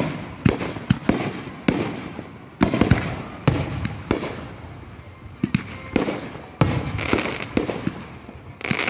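Consumer aerial fireworks launching and bursting overhead: a run of sharp bangs, one or two a second, each trailing off briefly.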